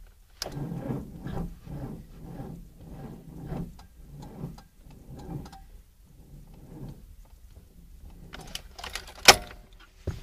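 Car starter cranking a frozen engine over slowly at −22 °C: rhythmic chugs roughly every half second that slow and fade without the engine catching. A few clicks and one sharp knock follow near the end.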